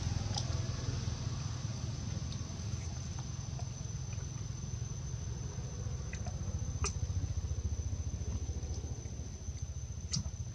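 Outdoor ambience: a steady, high, single-pitched insect drone over a low rumble, with a few faint clicks about seven and ten seconds in.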